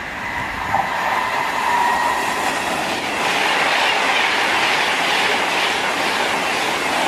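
Virgin Class 390 Pendolino electric train approaching and passing alongside the platform: a steady whine at first, then a loud rush of wheel and rail noise as the carriages go by.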